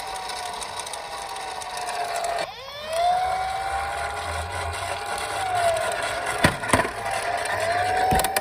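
Toy police minicar's electronic siren wailing in slow falls and rises, breaking off briefly and starting low again about two and a half seconds in. Under the siren runs a rattling noise from the toy rolling, with sharp knocks about six and a half and eight seconds in.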